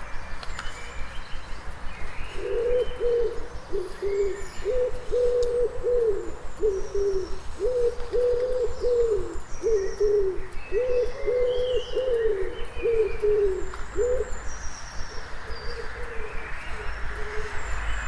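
Dawn chorus: a pigeon cooing, a long run of repeated low coos starting about two seconds in and stopping a few seconds before the end, over scattered high chirps and whistles from small songbirds. A low rumble of town traffic runs beneath.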